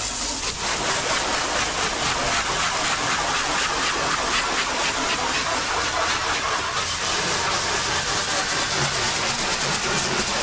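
Pressure washer spraying a steady hiss of water onto a car's dirt-caked paint.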